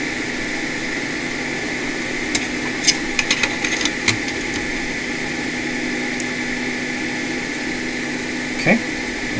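Steady machine hum, with a quick cluster of small plastic and metal clicks and taps about two to four seconds in as a laptop cooling fan is fitted onto a MacBook Pro logic board, and one more brief tap near the end.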